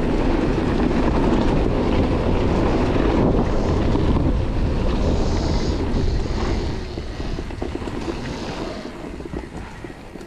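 Wind rushing over the microphone and tyre noise as an electric motorbike rolls along a dirt forest trail with its motor unpowered. The noise is loud at first and dies down from about six seconds in as the bike slows.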